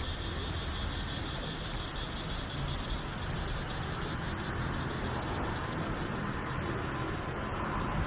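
Steady rushing outdoor noise with a low rumble underneath, even throughout, with no distinct single sound standing out.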